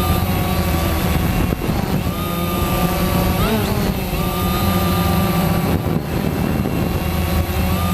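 Quanum Nova quadcopter's electric motors and propellers running with a steady multi-tone whine whose pitch shifts a little with the throttle, with a brief rise and fall in pitch about three and a half seconds in.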